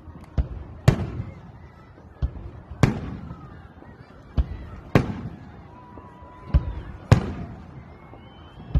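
Aerial firework shells bursting overhead: a loud bang about every two seconds with smaller bangs in between, each followed by a trailing echo.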